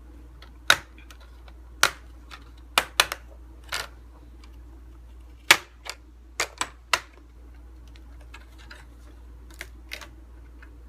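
Sharp plastic clicks and snaps, about ten of them in the first seven seconds and a few fainter ones later, as the snap-in plastic screen bezel of an HP G62 laptop is unsnapped along its edge.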